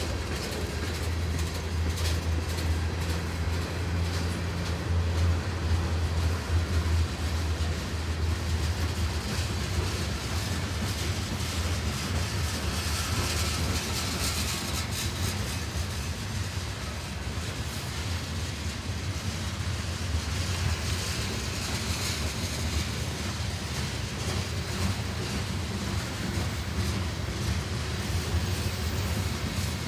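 CSX freight train cars rolling past, a steady rumble of steel wheels on rail with repeated clicks over the joints and a low drone that is stronger in the first half.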